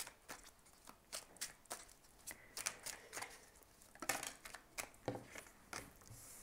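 Large oracle cards being shuffled by hand: a faint, irregular run of soft card slaps and flicks, a few per second, as the cards drop onto the pack. Near the end a card is laid down on the table.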